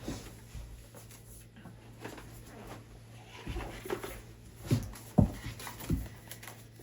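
Quiet room with a few soft knocks and rustles of handling, clustered between about three and a half and six seconds in.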